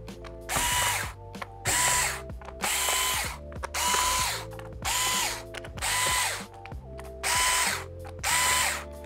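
Cordless electric screwdriver backing out the bottom-cover screws of a Chromebook, running in about eight short bursts, each a whine that rises as the motor spins up and falls as it stops.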